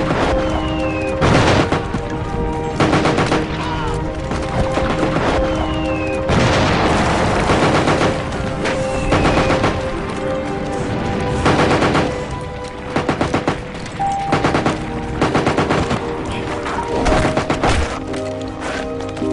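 Battle sound effects of gunfire, scattered shots and quick bursts of rapid machine-gun fire, over background music with held, sustained notes.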